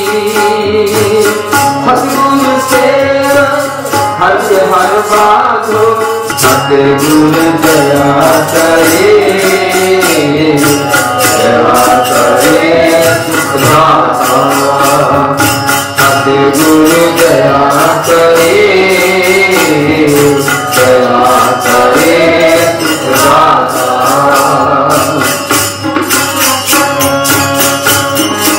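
Sikh kirtan: a man singing to a Nagi harmonium's melody, with tabla strokes keeping a steady rhythm.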